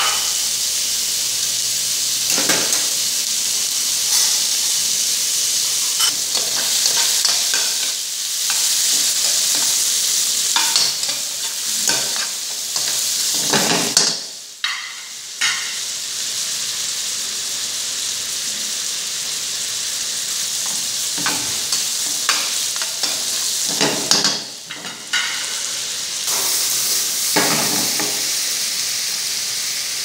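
Cubed beef ribeye searing in butter in a hot wok-style frying pan: a steady sizzle, broken by a number of short clatters of the pan and two brief drops in the sizzle as the meat is tossed.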